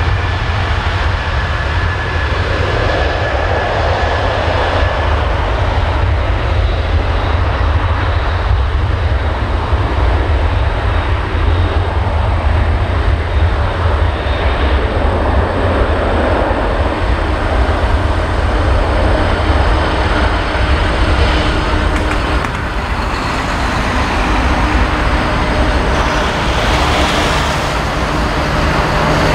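Boeing 747-400's four jet engines at take-off power, a loud, steady roar with a strong low rumble as the airliner rolls down the runway.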